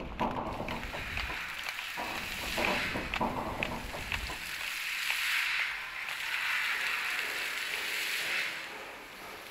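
Ambient soundscape composition: scattered clicks and crackles, then a band of hiss that swells up about halfway in and fades away near the end.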